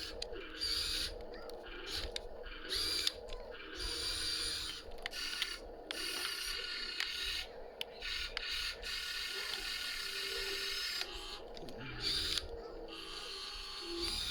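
Excavator at work: a mechanical whirring that rises, falls and briefly drops away every second or so as the machine is moved.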